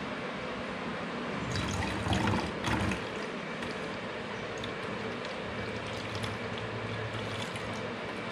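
Bioenzyme liquid pouring in a thin stream from a plastic bottle into the narrow neck of a plastic jug: a steady trickle, louder for a second or so about two seconds in.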